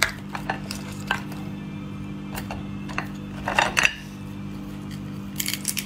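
Cooked oyster shells clicking and knocking against each other and the plate as they are picked up and pried open by hand: scattered single clicks, with a quick clatter about three and a half seconds in and another near the end.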